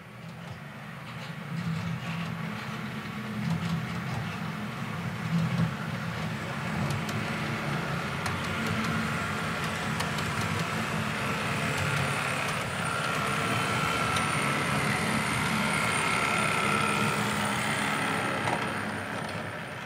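HO-scale model passenger train running past on the layout's track: the rumble of wheels on the rails and the locomotive's electric motor whirr. It builds up as the train comes by and fades near the end, with a few light clicks in the middle and a faint motor whine later on.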